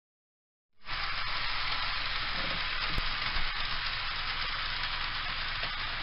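HO-scale model train running around its track: a steady hissing whir that starts about a second in, with one sharp click about three seconds in.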